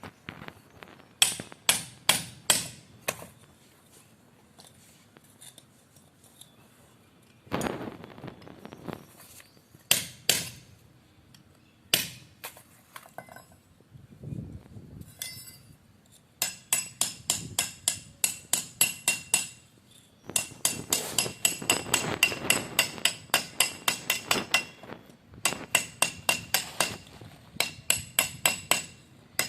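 A hammer striking metal with a bright ringing tone. There are a few separate blows at first, then long runs of quick taps, about four or five a second, through the second half. This is hammering on the grinder's metal parts during the bearing replacement.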